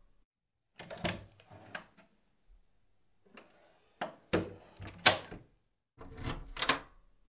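Three short clusters of sharp clicks and knocks: about a second in, around four to five seconds in, and near the end. The loudest comes about five seconds in.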